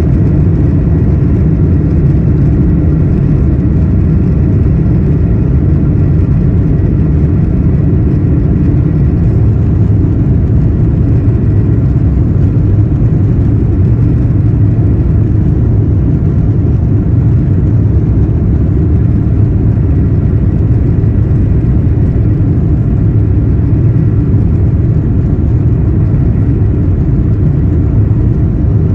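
Airbus A350 jet engines running at takeoff thrust, a loud, steady low rumble with a whir over it.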